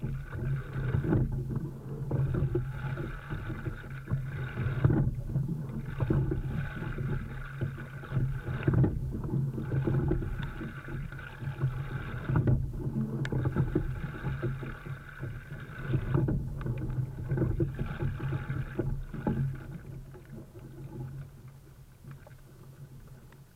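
Water rushing and splashing along the hull of a single rowing shell on choppy water, surging and dropping away in a regular rhythm about every four seconds with the rowing strokes. It fades toward the end.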